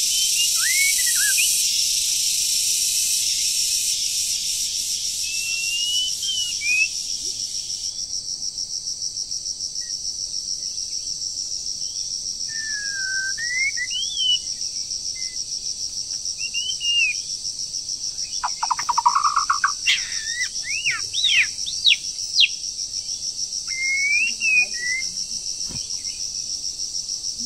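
White-rumped shama singing short, varied whistled phrases that sweep up and down, with a brief buzzy trill and a loud run of phrases about two-thirds of the way through. A steady high insect drone runs underneath.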